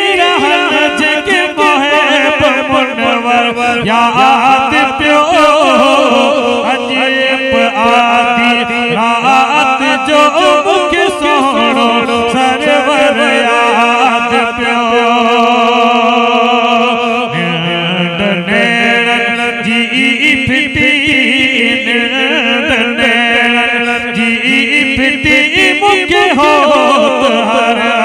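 A man singing a devotional molud (Islamic praise song) into a microphone, in long held notes with wavering ornaments.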